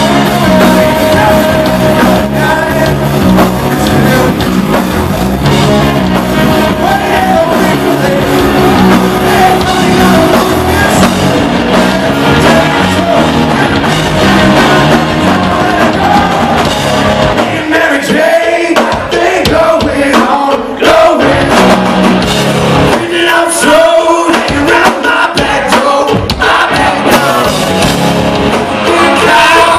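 Southern rock band playing live, heard from the crowd: electric guitars, bass and drum kit under a lead singer's vocals. About two-thirds of the way through, the band plays stop-start breaks in which the low end drops out for moments at a time.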